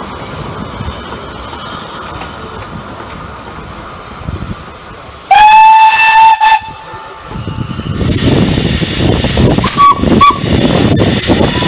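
Narrow-gauge steam locomotive whistle giving one blast of about a second and a half, a little under halfway through, then loud steam hiss from the engine that begins about two-thirds in and carries on.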